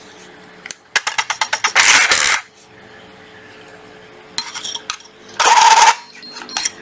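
MAX RB-395 rebar tying tool being handled while its tangled tie wire is sorted out: twice, a run of rapid clicking and clattering from the tool's casing and wire reel, each ending in a short, loud rasp.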